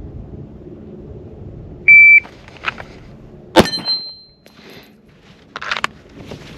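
Shot timer's start beep, one short steady high tone, followed about a second and a half later by a single pistol shot fired from the draw.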